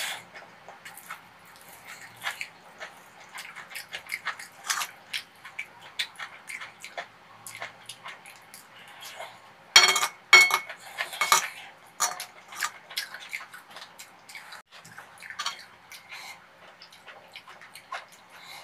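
Metal spoon clinking and scraping against a large dark pan as fried rice is scooped up, with small sharp clicks throughout. The loudest run of scrapes comes about ten seconds in.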